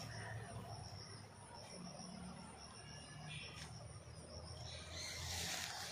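Faint outdoor ambience of insects chirring, a thin steady high tone over a low rumble. A short rise of hiss comes near the end.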